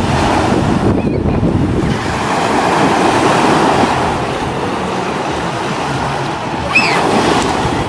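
Ocean surf: small waves breaking and washing through the shallows in a steady rushing hiss, with a brief high squeal about seven seconds in.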